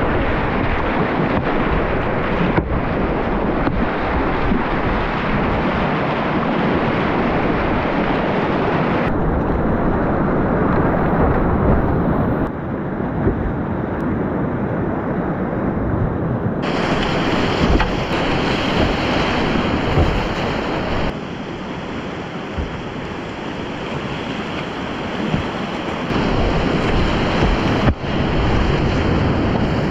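Rushing whitewater of river rapids, heard loud and close, with wind buffeting the microphone. The roar changes character abruptly several times.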